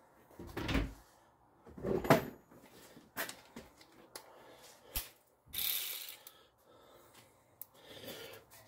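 Hand tools being handled while picking out a 12 mm socket and ratchet: a few separate knocks and clicks, with a short rattle about two-thirds of the way through.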